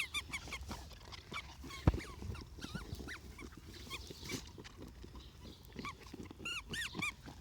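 A squeaky dog toy squeaking in short, arched squeaks as the dog chews it, scattered at first, then four in quick succession near the end. There is one sharp knock about two seconds in.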